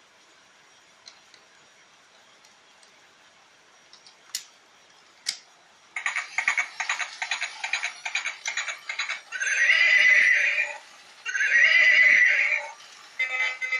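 Electronic horse sound effect from a toy wagon: a few scattered clicks, then galloping hoofbeats from about six seconds in, two long horse whinnies, and a short burst of hoofbeats again near the end.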